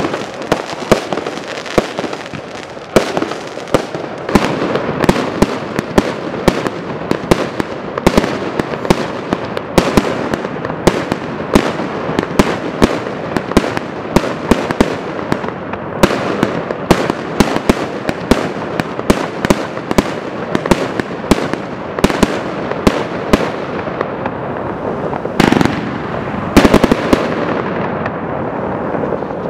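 Aerial fireworks bursting overhead: a steady string of sharp bangs, roughly two a second, over continuous crackling, with a pair of longer, louder blasts a few seconds before the end.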